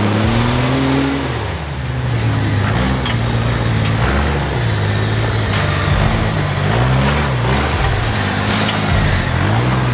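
Jeep Wrangler's engine revving up and down again and again as it crawls up a rutted dirt trail.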